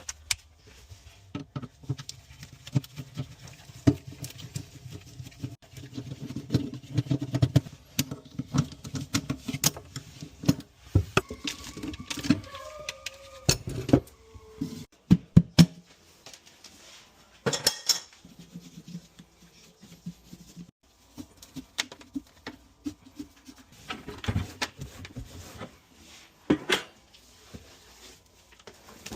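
Irregular clicks, knocks and clinks of tools and parts being handled while working on a leaking garbage disposal, with a short squeak near the middle.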